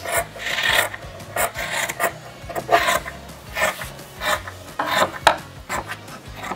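Scissors snipping through the fringe of a macramé cord feather, snip after snip at about two a second, as it is trimmed to shape.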